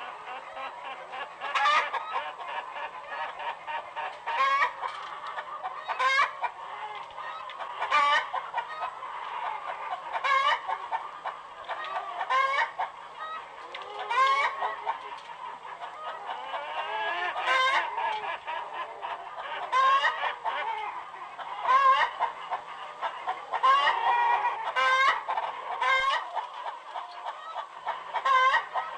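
A flock of farmyard poultry calling continuously: overlapping clucking chatter, with a louder, sharper call breaking out about every two seconds.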